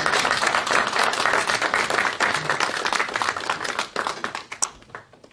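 Audience applauding, many hands clapping together, dying away about a second before the end.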